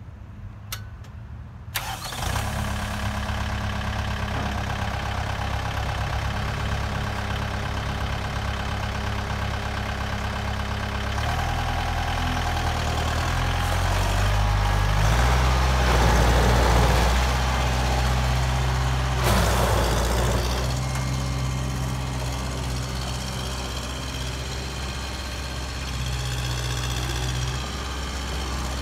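Kubota M7040's four-cylinder diesel engine starting about two seconds in and running, its note stepping up in revs partway through as the tractor is driven off; it is loudest around the middle.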